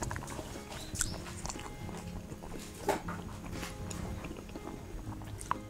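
A person chewing and biting a seafood and green onion pancake close to a clip-on microphone, with a few sharp clicks: about a second in, near the middle and near the end.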